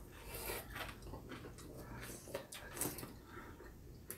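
Quiet eating noises: a few light clicks and scrapes of chopsticks against ceramic bowls of hot pot, with soft mouth sounds, the loudest a little under three seconds in.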